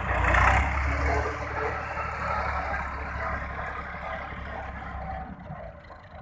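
Massey Ferguson 260 tractor's diesel engine running, loud at first. It fades steadily as the tractor drives away.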